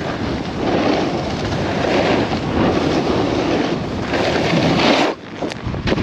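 Snowboard sliding and scraping over hard-packed snow, with wind buffeting the helmet-mounted camera's microphone; the scraping swells and fades with each turn. It drops away briefly about five seconds in, then comes back loud.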